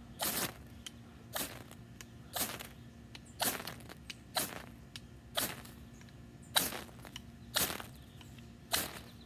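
A ferrocerium fire-steel rod struck with the spine of a bushcraft knife, a short rasping scrape about once a second, nine times, throwing sparks at fatwood shavings to light them.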